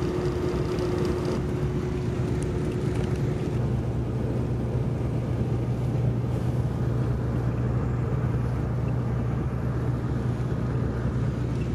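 Greyhound coach cruising on the highway, heard from inside the passenger cabin: a steady low engine and road drone. A faint steady hum sits over it for the first few seconds.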